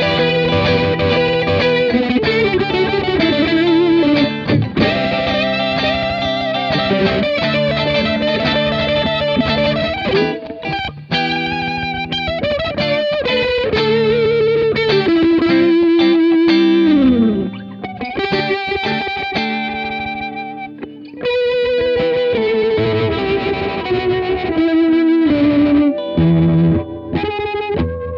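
Two electric guitars played together through a Fender Pinwheel rotary-speaker emulator pedal: held chords under a lead line with slides and bends, the tone warbling with the rotary effect.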